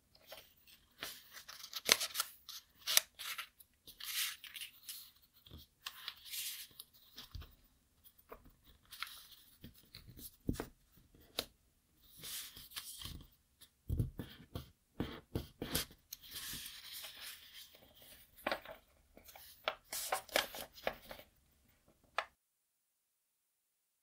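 A square sheet of origami paper being folded by hand: rustling and crackling as the sheet is bent, with sharp snaps and rubs as fingers press the crease flat against the tabletop. The handling stops near the end.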